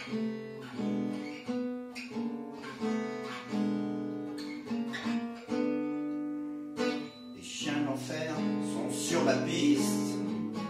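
Acoustic guitar playing a slow blues instrumental passage between verses: picked notes and chords about twice a second, turning to busier strumming about seven seconds in.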